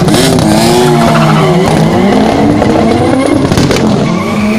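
Two drag cars, a BMW 3 Series (E46) sedan and a Mk2 Volkswagen Golf, launching off the start line at full throttle. The tyres squeal at the launch, and the engines rev up and drop back several times through gear changes as the cars pull away.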